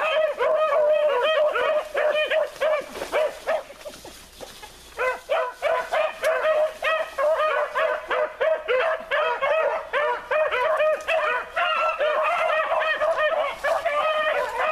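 A pack of four beagles baying together on a scent trail, many short overlapping calls at once. The chorus thins to a few scattered calls about three seconds in, then comes back in full a couple of seconds later.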